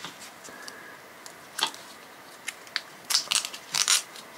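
Paracord being worked through a drilled hole in a plastic bottle cap by hand: scattered crinkly plastic clicks and rustles, coming thicker about three seconds in.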